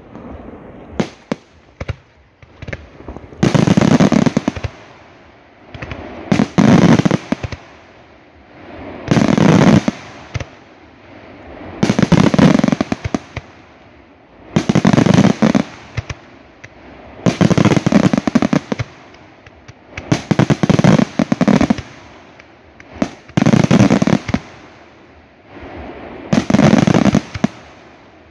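Aerial fireworks display: about nine loud clusters of rapid bangs and crackles from shells bursting overhead, each lasting about a second and coming roughly every three seconds, with quieter stretches in between.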